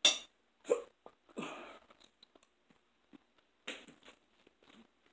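Eating sounds at a table: a fork clicking and scraping on a dinner plate, with intermittent close-up chewing. A sharp click right at the start, then a few short scrapes and mouth noises.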